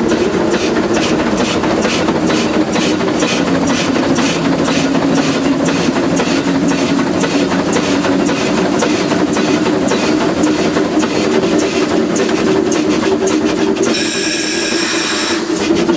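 Shay geared steam locomotive running, heard from inside the cab: its three-cylinder engine gives rapid, even exhaust beats over a steady low drone. A brief high-pitched sound rises over it about two seconds before the end.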